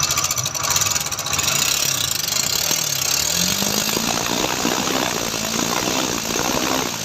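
TVS Apache RTR 4V's single-cylinder engine running with an abnormal mechanical noise, revved up and back down twice. The mechanic traces the noise to a worn-out intake rocker and a loose timing chain.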